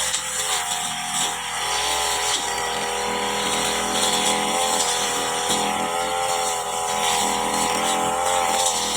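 Petrol brush cutter running at high revs while cutting grass, its engine note wavering slightly up and down as it takes the load.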